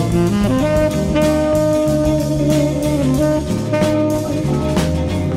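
Instrumental light music from a band: saxophones and brass hold long notes over bass and drum kit.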